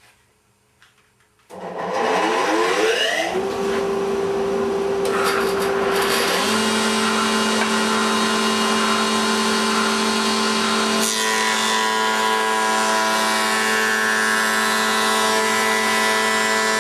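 Surface planer (jointer) switched on about a second and a half in, its motor and cutter block spinning up with a rising whine, then running steadily; the tone shifts again about six and eleven seconds in.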